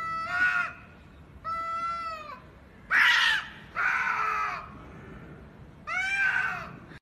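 Two cats yowling at each other in a fighting standoff: five drawn-out, wavering yowls, each under a second long, the loudest about three seconds in.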